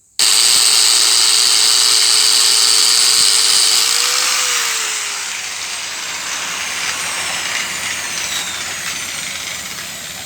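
An angle grinder starts suddenly and runs at speed, spinning the front wheel of a second-generation Yamaha TMAX 500 to check for a front-end howl, here with the speedometer sensor refitted and lightly greased. After about five seconds the sound falls away and the wheel coasts down with a faint falling whine. The loud howl is not there, though some noise still comes through.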